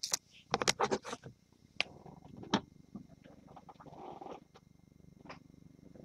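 Faint scattered clicks and crinkles from a shrink-wrapped trading card box and its plastic wrap being handled, with a few louder ticks in the first three seconds.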